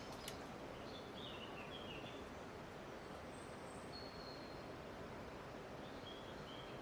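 Faint steady rush of river current, with small birds chirping now and then: a few short chirps and one thin, higher whistle. Two sharp clicks at the very start.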